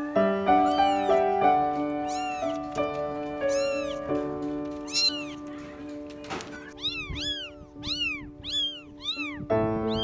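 Kittens mewing: repeated short, high-pitched mews that rise and fall in pitch, spaced out at first, then a quick run of about five in a row about seven seconds in, over background music of steady held notes.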